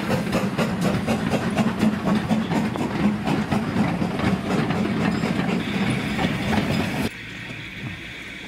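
Steam locomotives moving slowly past close by: rapid, evenly spaced beats over a steady low rumble. Near the end the sound cuts off abruptly, leaving a fainter steady hiss.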